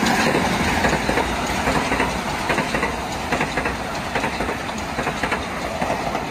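A Metro-North commuter train rolling past, its wheels clacking rhythmically over the rail joints above a steady rumble of wheels on rail.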